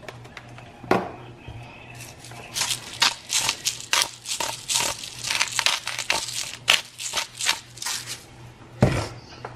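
A hand-held seasoning container worked over a pan of sauced fettuccine: a sharp click about a second in, then a run of short, crunchy rattling strokes about two to three a second, and a thump near the end.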